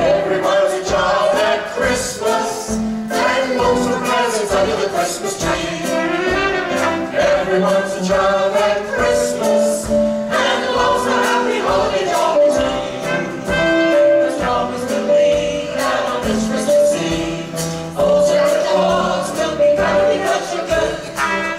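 Musical theatre student ensemble singing a Christmas song in chorus, with instrumental accompaniment and a steady beat.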